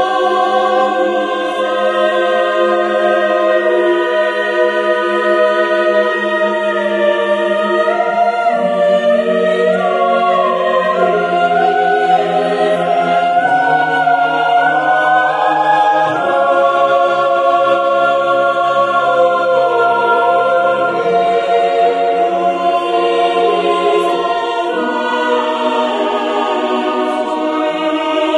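Choral music: a choir singing slow, sustained chords that shift every few seconds, with no beat.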